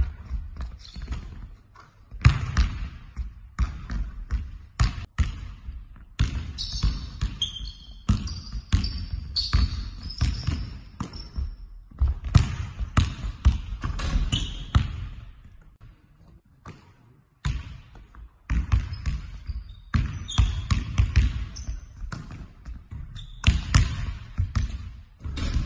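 Basketballs bouncing again and again on a hardwood gym floor during dribbling drills, with short high squeaks of sneakers on the court between the bounces. The bouncing briefly drops away about two-thirds of the way through.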